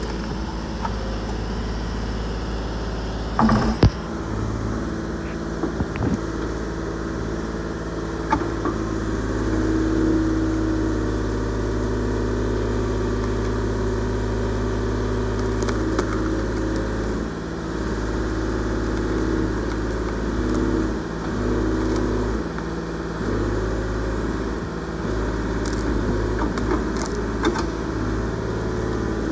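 Case 125B excavator's diesel engine running steadily under working load as the bucket digs at tree stumps, its note shifting a little with the load, with a few short knocks along the way.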